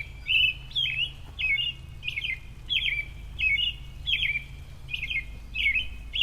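A bird chirping over and over, about two short, high calls a second, each a quick downward-sweeping note.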